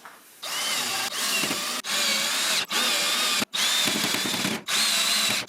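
Cordless drill driving screws to fasten the battery rack's side panel. Its motor whines in about five runs of a second or so, with short stops between them, starting about half a second in.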